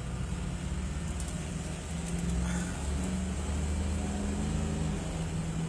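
Steady low rumble of a motor vehicle engine and traffic, swelling a little in the middle.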